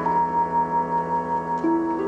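Dramatic orchestral television title music: sustained chords with piano, a long held high note, and a new lower note entering near the end.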